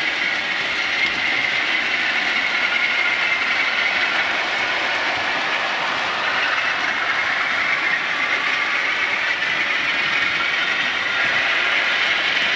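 Model trains running on the layout's track, giving a steady rolling sound of wheels on rail.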